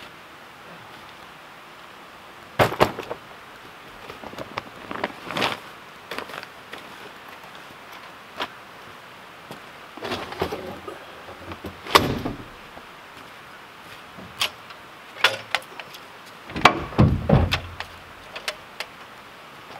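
Scattered knocks, thumps and clatters of a pickup truck being loaded: a truck door shut with a double knock about three seconds in, then gear being packed into the bed under the canopy, with a loud run of clatters near the end as a folding metal step ladder is handled.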